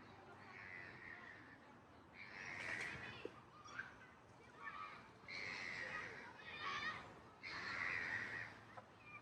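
Crows cawing in a series of harsh calls, the loudest about two and a half, five and a half and seven and a half seconds in, with a quicker rattling call just before the last.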